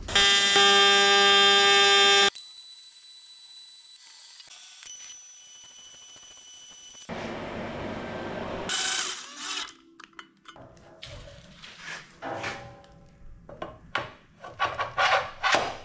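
TIG welder buzzing steadily for about two seconds while welding an aluminium motor mount, then cutting off. Quieter workshop hum follows, then a run of irregular metal knocks and clatter from handling the parts.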